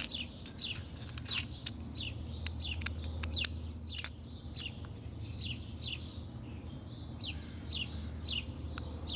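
A bird chirping over and over, short falling chirps about twice a second, with a steady low hum underneath.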